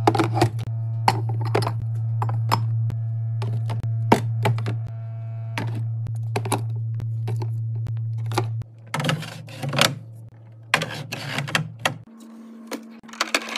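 Items being set down and handled during a fridge restock: a run of sharp clacks and thunks, some in quick clusters, over a steady low hum that cuts out about two-thirds of the way in.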